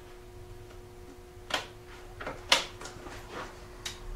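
Several sharp clicks and knocks from hands handling the ATV's ignition parts, the loudest about two and a half seconds in, over a faint steady hum.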